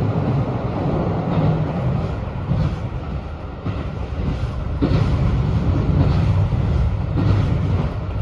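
A JR Hokkaido 721 series electric train running, heard from inside the car: a steady low rumble with a few sharp clacks from the wheels on the track.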